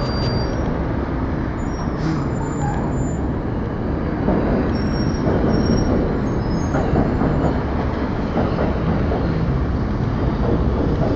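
Steady low rumble of city street traffic from passing cars, taxis and buses.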